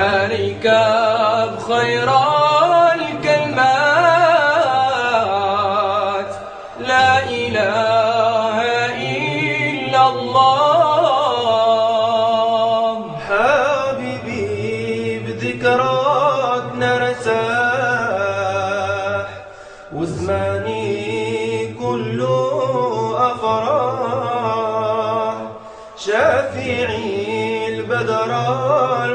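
Unaccompanied male voices singing an Arabic Sufi devotional chant (dhikr), a wavering, ornamented melody in long drawn-out phrases with short breaks about every six or seven seconds.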